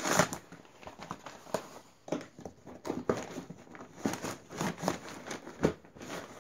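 A cardboard shipping box and its packing being handled and pulled open: irregular knocks, taps and rustles.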